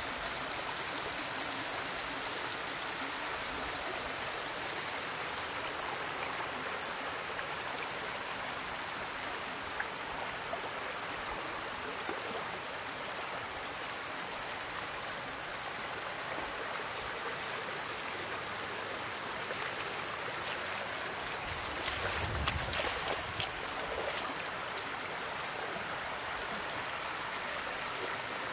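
Steady rush of flowing water, with a few short splashes about three-quarters of the way through.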